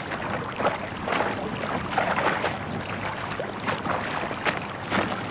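Water splashing and sloshing in irregular bursts, as from people wading through deep water.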